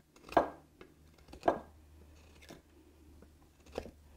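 Hook knife cutting into soft wood: four short cuts about a second apart, the first two loudest.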